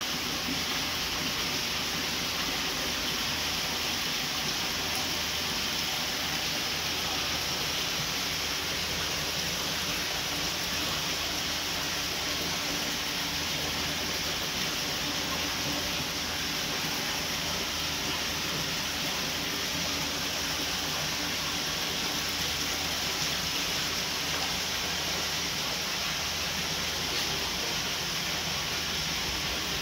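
Steady rushing of running water, with a faint low hum underneath.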